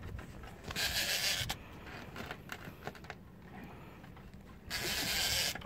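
Clothing rubbing and brushing over a phone's microphone in two rustling bursts, about a second in and again near the end, with faint scattered clicks between.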